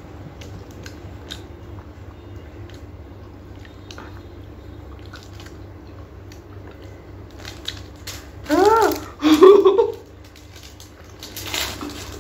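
Quiet mouth sounds of stick ice creams being bitten and sucked, with faint clicks over a low hum. About eight and a half seconds in comes a brief, loud wordless vocal sound whose pitch rises and falls.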